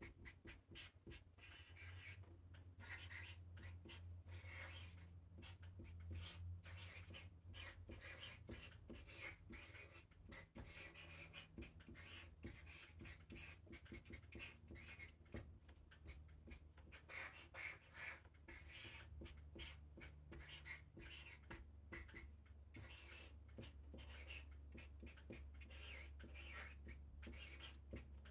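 Faint scratching of a marker tip drawing on paper in many short, uneven strokes, over a low steady hum.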